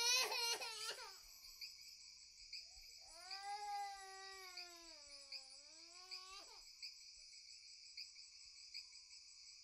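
A young child crying: a wail that breaks into short sobs in the first second, then a second long wail that rises, sinks and climbs again before stopping suddenly. Crickets chirp steadily behind it.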